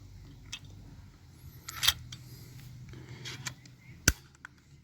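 Rapid ALU940 staple gun being handled as it is reloaded: a few light clicks, then one sharp click about four seconds in as the staple magazine latches shut.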